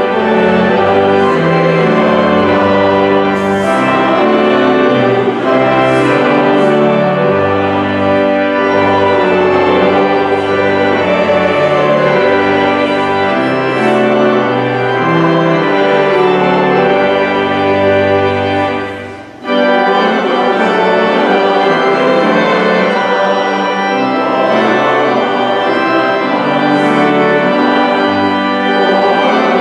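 Church organ playing slow, held chords, with a brief break about two-thirds of the way through before it plays on.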